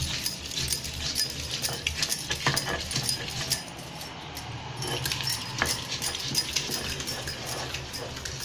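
A stone muller (batta) grinding on a flat stone slab (sil-batta), knocking and scraping stone on stone as it crushes amla, chillies, garlic and coriander into a coarse chutney, with bangles clinking on the working wrist.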